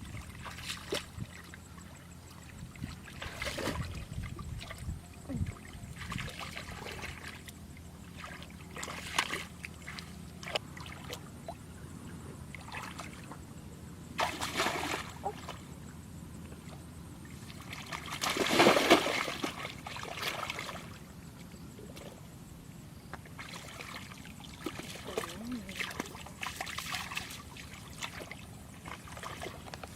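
Water splashing and sloshing now and then, in short irregular bursts, with the biggest splash a little past halfway.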